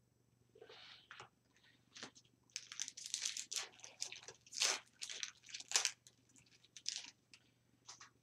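Foil wrapper of a hockey card pack being torn open and crinkled by hand: a run of irregular crackles and crunches, busiest in the middle.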